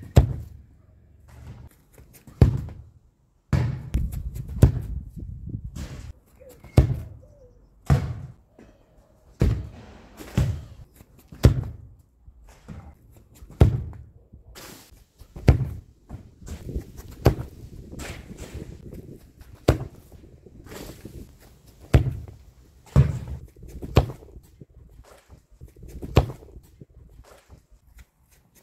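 Football being kicked hard again and again: a string of sharp thuds from the foot striking the ball and the ball landing, roughly one every second or two.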